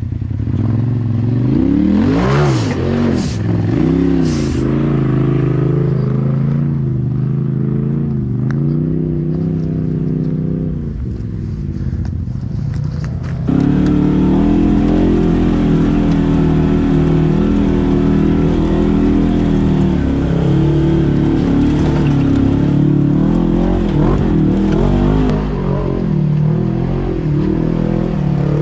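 Side-by-side UTV engine revving up and down as it climbs rock ledges, with a few sharp scraping or knocking noises two to four seconds in. About halfway through the sound jumps to a louder, steadier engine drone.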